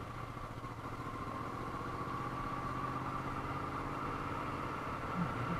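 Moto Guzzi V35's air-cooled V-twin running steadily under way on a climbing mountain road. The engine note holds even and grows slightly louder after about a second.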